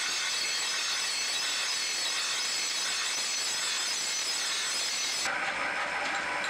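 Steel cleaver blade ground against a motor-driven grinding wheel: a steady, hissing grind with high whining tones. About five seconds in it gives way abruptly to a different, duller sound.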